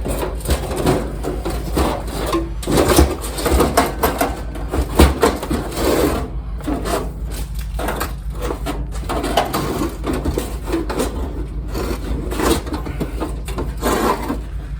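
Sheet-metal parts of a kerosene heater clanking, knocking and scraping as they are set back down and fitted into place, over a steady low hum.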